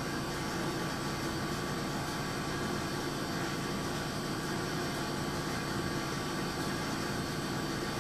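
Steady mechanical hum with an even hiss and no changes, like a running fan or air-conditioning unit.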